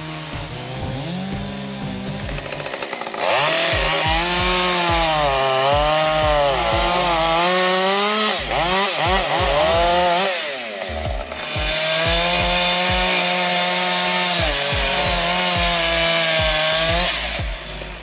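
Two-stroke gasoline chainsaws running and cutting through logs, the engine pitch dipping under load and rising again between cuts. Quieter for about the first three seconds, then loud.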